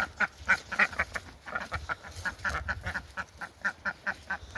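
A flock of domestic ducks quacking in a rapid, steady run of short calls, about four a second.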